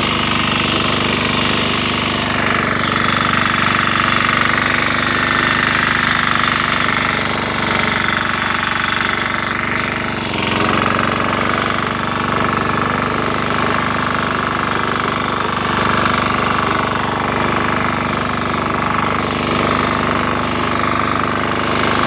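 Grass-cutting machine's engine running steadily, with a brief dip about ten seconds in.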